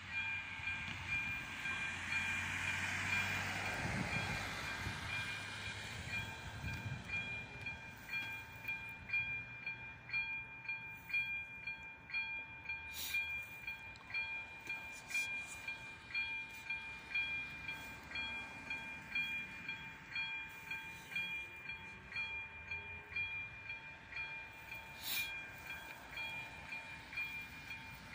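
Railway level-crossing warning bell ringing steadily, about one strike a second. In the first few seconds a train's rumble swells and fades. There are two sharp knocks later on.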